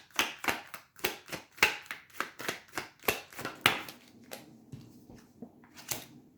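A tarot deck being shuffled by hand: a quick run of card flicks and slaps, about three a second, thinning out and fading in the last couple of seconds.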